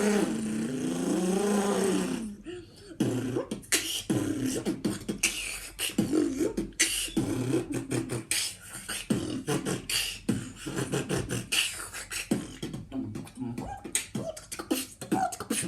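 Beatboxer imitating a motorbike with his voice: a buzzing tone that rises and falls in pitch like an engine revving for about two seconds, then a fast beatbox rhythm of mouth-made drum hits and short bass notes.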